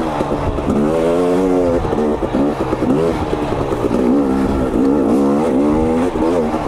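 2022 KTM 250 XC's two-stroke engine being ridden hard, its revs rising and falling repeatedly through the gears and throttle changes.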